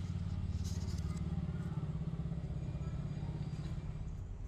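A motor vehicle's engine running in the background, a low, steady rumble that eases off near the end. A brief light rustle comes about a second in.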